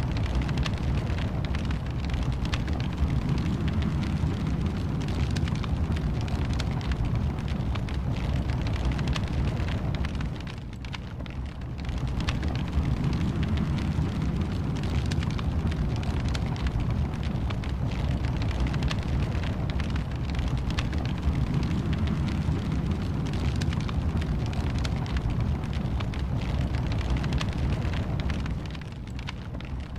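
Wood fire in a fireplace crackling, many small pops over a steady low rumble of flames. The level dips briefly about ten seconds in and again near the end.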